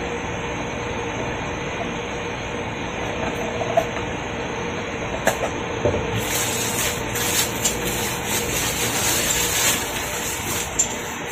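Plastic packaging crinkling and rustling for several seconds from about halfway in as an item is unwrapped. Before that come a few sharp handling clicks and knocks, all over a steady background rumble.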